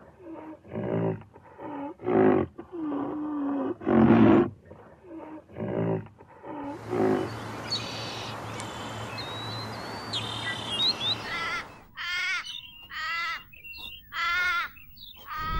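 Rhinoceros calls: a run of short, pitched calls every half second to a second for the first six seconds. After that comes about five seconds of steady outdoor hiss with small bird chirps, then four wavering high-pitched animal calls near the end.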